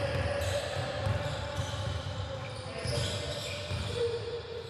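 Basketball being dribbled on a hardwood gym court, a series of irregular thuds, along with players' footsteps.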